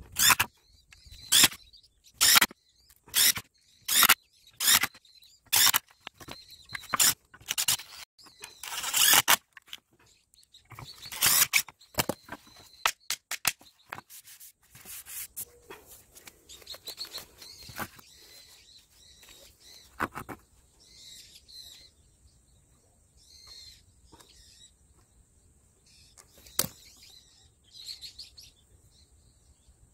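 A rapid series of short scraping squeaks, roughly one every 0.7 s for about ten seconds, from a thin metal hand tool worked against the screw heads in fibre-cement siding boards. After that come fainter, scattered scrapes and handling sounds.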